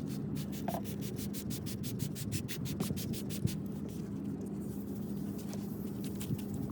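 Abrasive rubbing on a plastic headlight lens: fast, evenly repeated scratchy strokes over a steady low hum.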